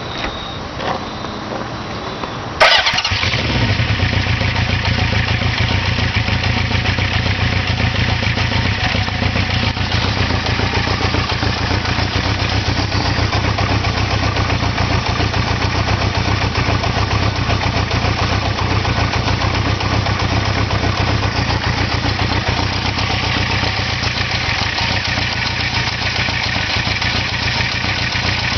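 A vehicle engine starts suddenly about two and a half seconds in and then idles steadily; the owner considers the idle sound a problem.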